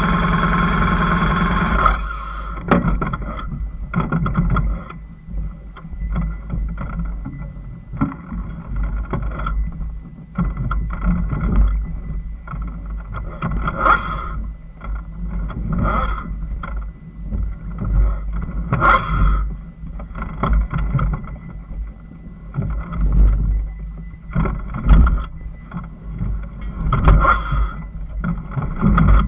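Off-road motorcycle engine rising and falling unevenly with the throttle as it climbs a rough, rocky hill track, with knocks from the ground and wind on the microphone. Music plays for the first two seconds.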